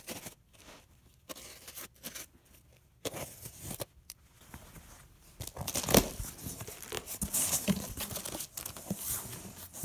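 Packing tape on a cardboard box being slit and torn, and the cardboard flaps being pulled open, in a run of short scraping and rustling strokes. Near the end the plastic wrap on the foam tiles inside crinkles. There is a sharp knock about six seconds in.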